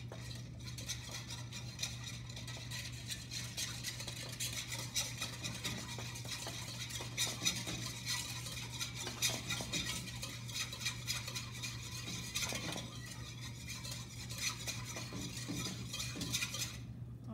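Wire whisk stirring a thin liquid sauce in a stainless steel mixing bowl: rapid, continuous light scraping and clinking against the metal, with a steady low hum underneath. The sauce is being mixed until the honey at the bottom dissolves.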